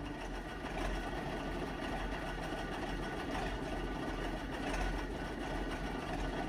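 Narrow-gauge diesel locomotive engine idling steadily with a low rumble.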